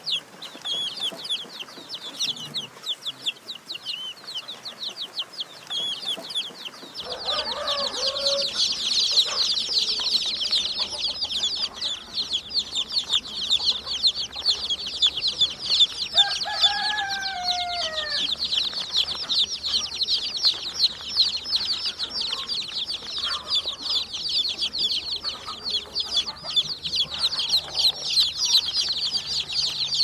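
Domestic chicks peeping: scattered high peeps at first, then from about seven seconds in a dense, unbroken chorus of many chicks peeping together.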